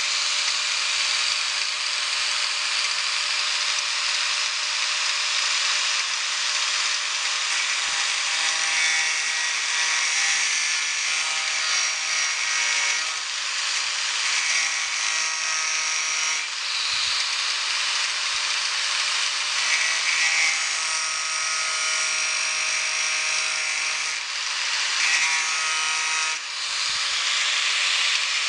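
Electric angle grinder running with a thin disc cutting a relief groove into the corner of a steel door-skin flange. The grinding noise is steady, and a whine over it comes and goes as the disc bears into the metal.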